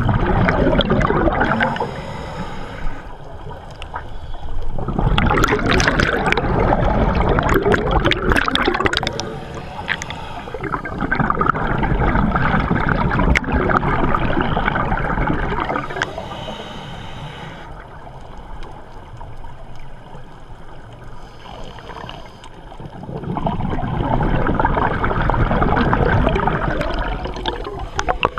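Scuba regulator exhaust bubbles gurgling and rushing, heard underwater: a diver's exhaled breath coming out in long rushes a few seconds apart, with quieter spells between.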